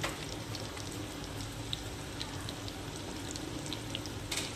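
Breaded chicken schnitzel frying in hot oil in a pan: a steady sizzle with scattered small crackles and pops.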